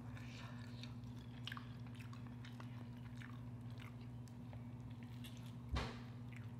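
Quiet eating sounds: small clicks and crackles of seafood shell being picked apart by fingers, with chewing, and one sharper crack a little before the end. A steady low hum sits underneath.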